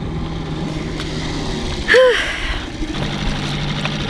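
Small outboard motor on a dinghy idling steadily just after being pull-started. A short pitched call, like a brief voice, sounds about two seconds in.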